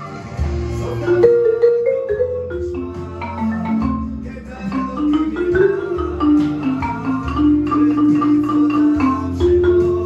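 Dynasty marimba played with mallets in a quick, flowing jam: runs of struck wooden bars ringing on, with a low sustained bass under them that changes every second or two.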